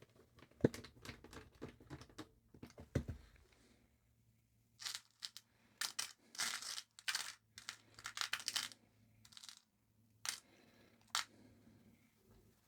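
Small-parts handling: light clicks and taps of small screws being picked through over the first few seconds, then a run of short rustling, crinkling bursts.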